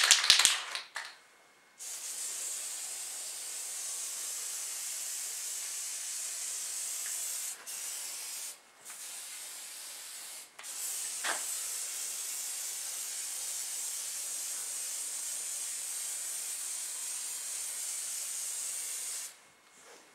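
Aerosol spray paint can hissing as paint is sprayed onto a rifle stock, in several long bursts (the longest about eight seconds) with brief pauses between them.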